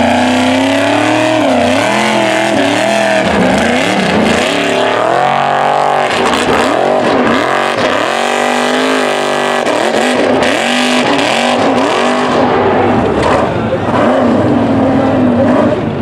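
Off-road hill-climb buggy's engine revving hard under full throttle, its pitch swinging up and down again and again as the tyres spin for grip on a loose dirt slope.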